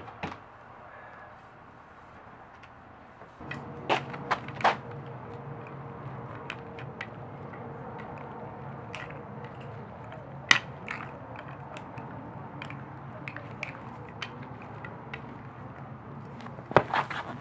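Broom handle jabbing down at a toy frog on a concrete floor: scattered sharp knocks, three in quick succession about four seconds in, a single loud one around the middle, and a quick cluster near the end. A low steady hum sets in about three and a half seconds in and stays underneath.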